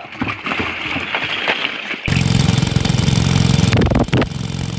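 Scattered clicks and knocks, then about two seconds in a small engine cuts in, running with a steady low throb.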